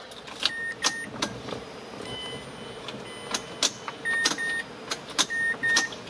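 Ignition key of a Mazda CX-7 being turned over and over: sharp clicks from the key and ignition switch, with several short pairs of electronic chime beeps. The starter never cranks and the engine does not start, the sign of a no-crank fault.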